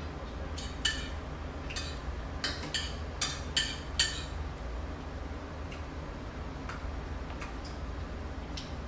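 Cutlery clinking and scraping on plates during a meal: a run of sharp, ringing clinks in the first four seconds, then a few fainter taps. A steady low hum runs underneath.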